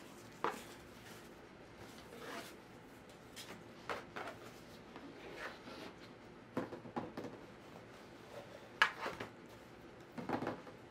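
Unboxing by hand: a ribbon sliding off a cardboard shoe box, the lid lifted off, and a cotton dust bag pulled out and handled, heard as short scattered rustles and scrapes.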